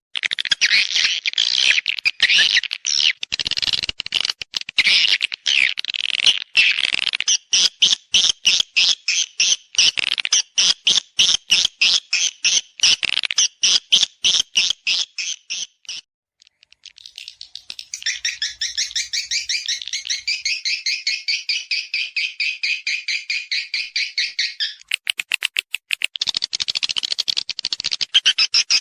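Swiftlet lure call: a recorded mating call of swiftlets, the rapid chirping and twittering played to attract swiftlets to roost and nest in a swiftlet house. The fast run of chirps breaks off about halfway through, resumes as a denser twittering, and returns to quick pulsed chirps near the end.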